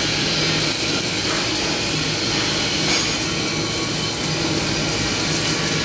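Electric arc welding on steel plate: the steady hiss of the welding arc, its highest frequencies coming in about half a second in, over a steady low hum.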